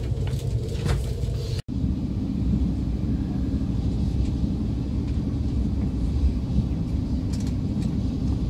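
Inside the cabin of an SRT high-speed train, running: a steady low rumble. It comes in after a brief sudden dropout about a second and a half in. Before that there is quieter cabin ambience with a few faint clicks and voices.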